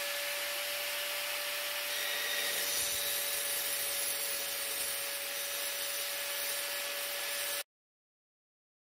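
Small angle grinder with a diamond blade running at full speed and cutting into a ceramic tile: a steady whine over a loud grinding hiss, which stops abruptly near the end.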